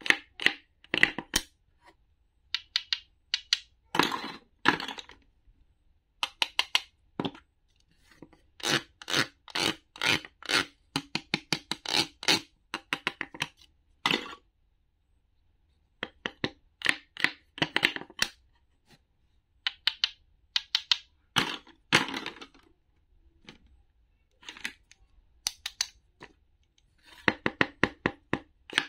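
A wooden toy knife and wooden toy vegetables knocking and clicking on a wooden cutting board as the pieces are cut apart and handled. The sound comes as quick clusters of sharp clicks and taps, with a few short scraping stretches and brief pauses between.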